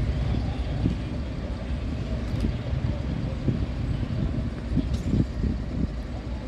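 Diesel engines of emergency trucks driving slowly past, a steady low rumble.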